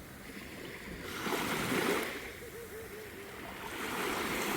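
Small waves of a calm sea washing in, swelling and falling back in gentle surges every two or three seconds.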